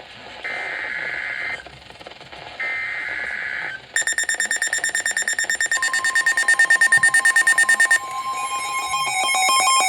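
Emergency Alert System SAME data bursts: buzzy electronic squawks of about a second each, two of them with short gaps. About four seconds in, a rapidly pulsing electronic alert tone starts, changing near eight seconds into a stepping beeping pattern.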